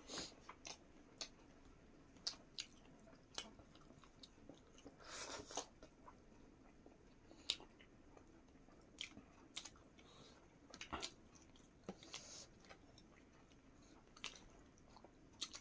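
Quiet chewing and mouth clicks of people eating rice and curry by hand, with scattered short sharp ticks and two longer rustling bursts, about five seconds in and about twelve seconds in.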